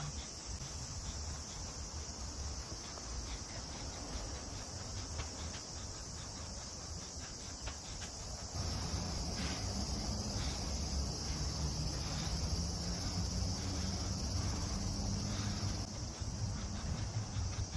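Insects droning steadily at a high pitch, with the footsteps of a person walking outdoors. A low rumble swells about halfway through.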